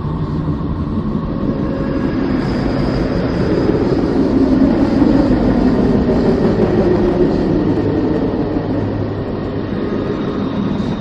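A dense, rumbling space drone of the kind presented as a planet's sound (spacecraft radio-emission recordings turned into audio). It swells about halfway through and eases off toward the end.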